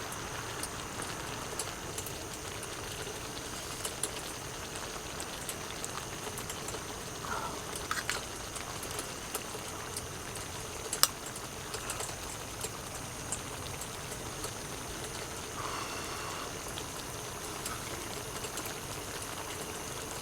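A pot of stew bubbling on the burner: a steady simmering hiss dotted with small pops and clicks, with one sharper click about eleven seconds in.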